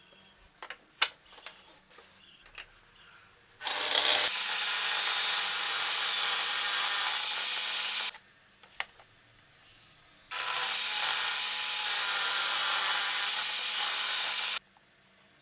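A router cutting wood in two passes of about four seconds each, the cutting noise starting and stopping abruptly each time. A few light knocks come before the first pass.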